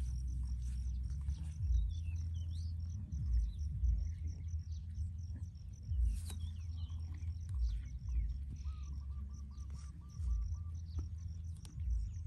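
Open-field ambience: birds chirping and insects calling over a low rumble of wind on the microphone, with soft crunches of a calf cropping dry grass.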